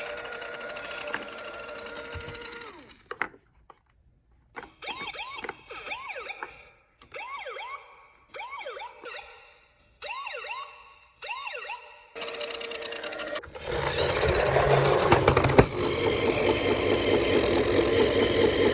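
Toy police car's electronic siren sounding in short bursts, each a few quick rising-and-falling wails with gaps between. About twelve seconds in it gives way to a louder, noisier whirring stretch.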